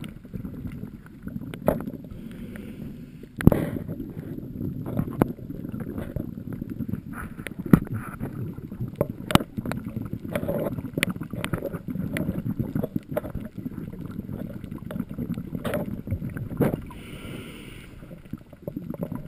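Muffled underwater sound picked up by a camera in a waterproof housing: a steady low rumble of moving water, with scattered sharp clicks and knocks. The loudest knocks come about three and a half seconds and eight seconds in.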